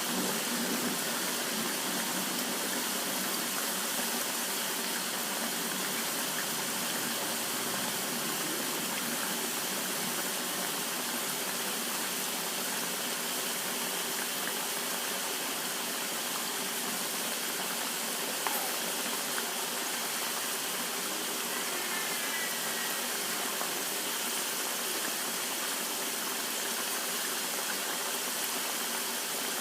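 Batuk fritters deep-frying in hot oil: a steady, even sizzle.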